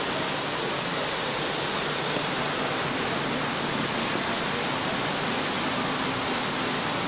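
Steady rushing noise of running water, even and unchanging.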